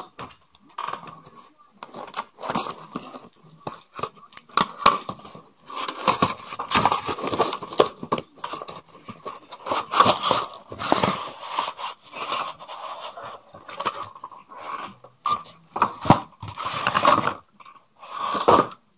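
Cardboard-and-plastic doll packaging being cut with scissors and torn open: irregular crunching, snipping, crinkling and scraping in short bursts with brief pauses.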